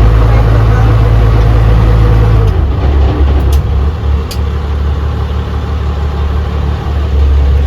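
A local tour boat's engine runs with a steady low drone. About two and a half seconds in, its note drops lower and the sound eases a little.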